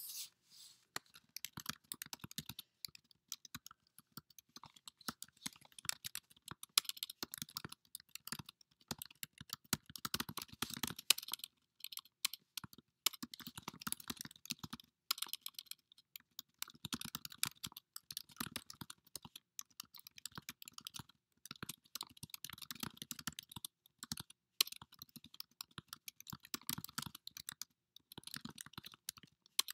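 Typing on a computer keyboard: quick runs of key clicks with short pauses between bursts, as sentences are typed into a document.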